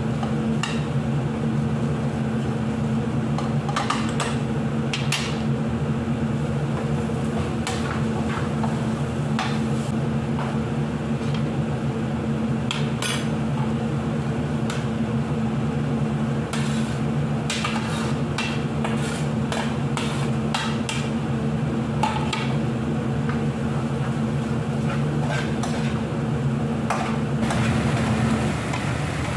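Metal spatula scraping and tapping in a non-stick frying pan while vegetable and minced-meat filling is stir-fried, in many short, irregular clicks and scrapes. A steady low hum runs underneath and stops near the end.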